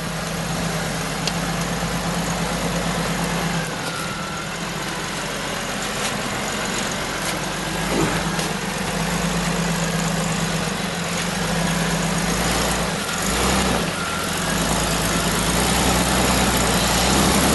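Jeep Wrangler YJ engine running at low revs as the 4x4 crawls slowly over a dirt mound, the note holding mostly steady and getting a little louder near the end.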